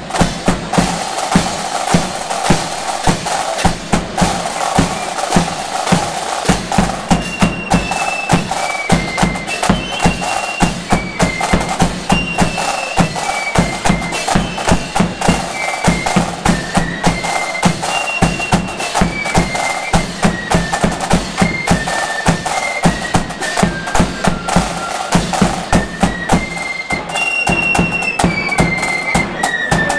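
Marching flute band playing: side drums rattle out a dense rhythm over bass drum beats and clashing cymbals, with a high flute melody stepping through its notes, clearest from about seven seconds in.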